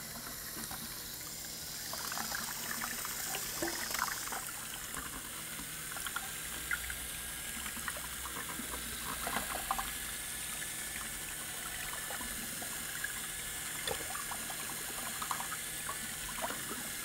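Cordless drill driving a small squirrel mixer paddle through two-part urethane cement resin in a plastic bucket: a steady liquid swishing with a faint motor whine and scattered light clicks.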